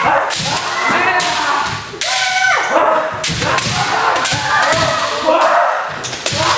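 Kendo sparring: bamboo shinai clacking and striking against armour, stamping feet thudding on wooden floorboards, and drawn-out kiai shouts from several players, with many sharp hits throughout.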